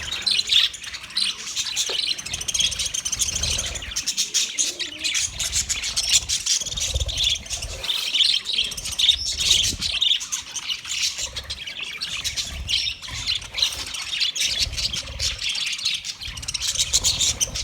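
Budgerigars chirping and chattering in a dense, unbroken stream of high, rapid chirps.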